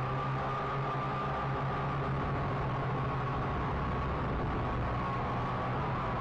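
Syma X8C quadcopter's motors and propellers whining steadily, picked up close by its onboard camera. The high tone wavers slightly as the motor speed shifts in flight.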